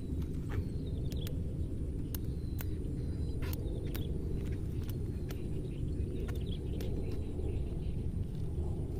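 Steady low rumble of wind on the microphone, with scattered light clicks and taps as a telescopic fishing rod is pulled out section by section.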